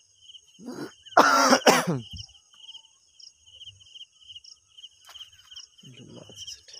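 A person coughs loudly, a harsh cough in two quick bursts about a second in, with a short throaty sound just before it and another near the end. Behind it, insects keep up a steady pulsing chirp.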